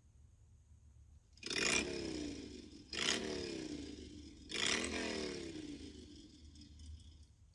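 An iPhone 11 Pro ringtone: three blasts about a second and a half apart, each falling in pitch over a rough hiss and fading away.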